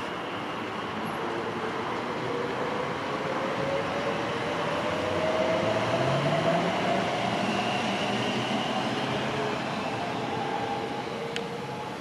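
Elizabeth line Class 345 electric multiple unit accelerating away, its traction motors giving a rising whine over a steady rushing noise. It is loudest about halfway through and fades near the end as the train draws off.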